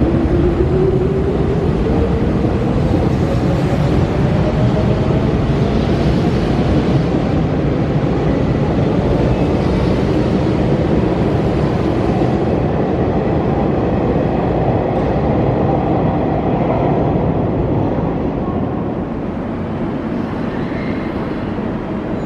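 Hanshin 8000-series electric train pulling away from a station platform, its traction motors whining in a rising tone as it speeds up, over the steady rumble of the wheels on the rails. The sound eases off a little in the last few seconds as the cars run past.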